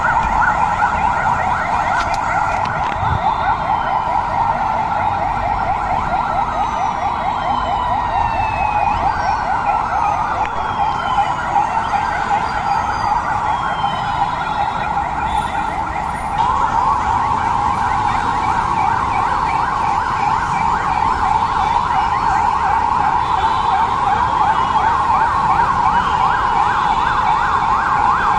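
Sirens of a convoy of police cars sounding together: many fast-warbling wails overlapping into one dense, steady wall of sound. It grows louder about 16 seconds in.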